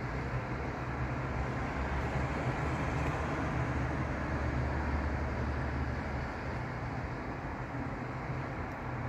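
Road traffic at a busy junction: a steady mix of engines and tyres on wet tarmac, with a deeper low rumble that swells in the middle and eases off about six seconds in as lorries move through.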